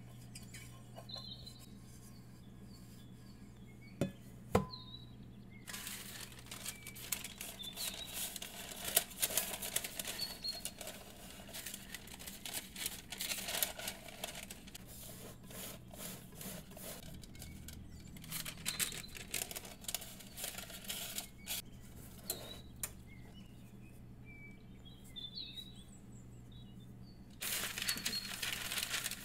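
Parchment paper crinkling and rustling as it is pressed into a metal cake pan, in two long spells, the second starting near the end. Faint birdsong chirps underneath, and a couple of sharp taps come about four seconds in.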